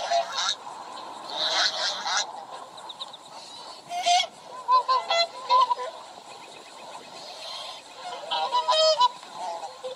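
Waterfowl honking: runs of short nasal honks, goose- or swan-like, that come in bursts a couple of seconds apart.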